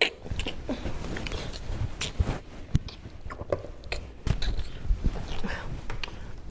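Close-miked eating: someone chewing and biting food, with irregular crunchy clicks.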